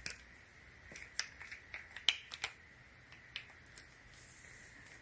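Quiet, scattered clicks and taps of small hard parts being handled: a 41mm quick-release tripod plate being tried on a tripod head's clamp.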